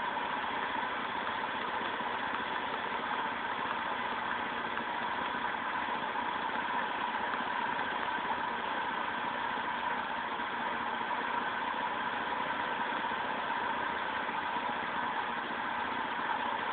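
Vauxhall C30SE 3.0-litre 24-valve straight-six engine idling steadily when warm, after about twenty minutes of running.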